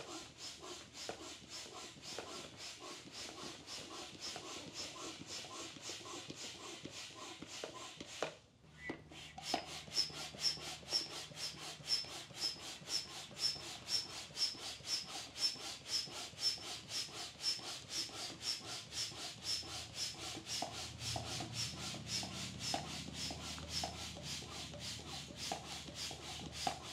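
Hand pump inflating an inflatable boat's air chamber: steady, rhythmic strokes of air pushed through the valve, with a short break about eight seconds in.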